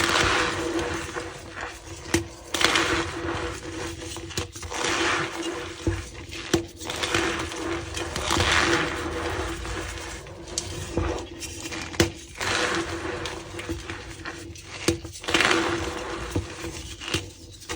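Reformed gym chalk blocks being squeezed and crumbled by hand, crunching and squeaking in repeated strokes about one every one to two seconds, with a few sharp cracks as pieces break.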